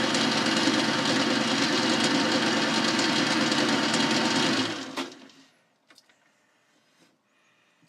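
Boxford lathe running, its tool cutting a metal die blank held in the spinning three-jaw chuck, a steady machine noise. A little past halfway the lathe is switched off and the noise dies away over about a second, with a click.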